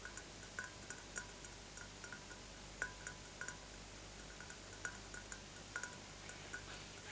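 Faint, irregular water dripping: single soft plinks, two or three a second, unevenly spaced, over a low steady hum.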